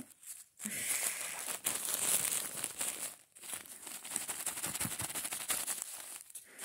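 Tissue paper wrapping crinkling and rustling as it is handled and unwrapped, in two long stretches broken by a brief pause about three seconds in.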